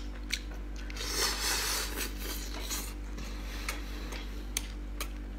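Cooked octopus being torn apart by hand and chewed: a wet crackling, tearing stretch about a second in, then a few sharp clicks.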